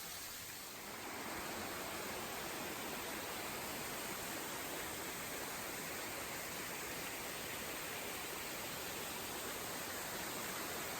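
Steady rushing of falling water from a waterfall, growing a little louder about a second in.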